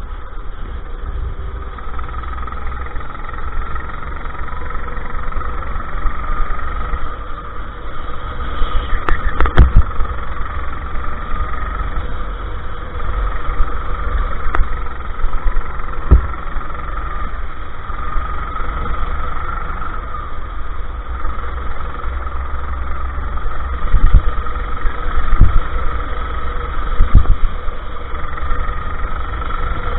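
Go-kart engine running under load, heard onboard, its pitch wavering up and down with the throttle through the corners, over a low rumble. Several sharp knocks cut in, the loudest about a third of the way in and three near the end.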